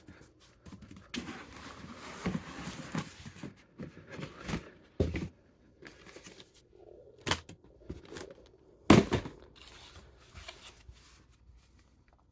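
Rummaging and handling objects: rustling and scraping with a string of knocks and thumps, the loudest about nine seconds in, then near silence at the end.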